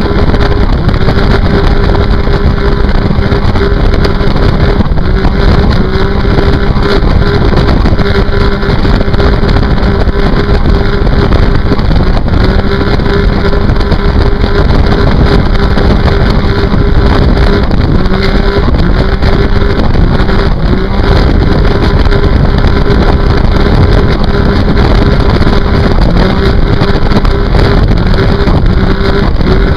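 Sea-Doo RXT personal watercraft running flat out with its supercharged three-cylinder four-stroke at high, steady revs, its pitch dipping briefly now and then. Water spray and wind rush mix with the engine.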